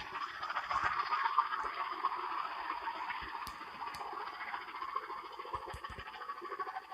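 Slowed-down elephant sound used as an Apatosaurus sound effect: a long, noisy, breathy rumble without a clear pitch, fading near the end.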